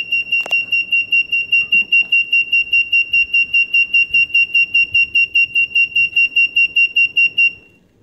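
A Raspberry Pi alarm's buzzer sounding its siren mode: a high-pitched beep repeating rapidly, about six times a second, after the vibration sensor detects an intruder. One sharp knock sounds about half a second in. The beeping cuts off abruptly near the end as the alarm is disarmed with the PIN.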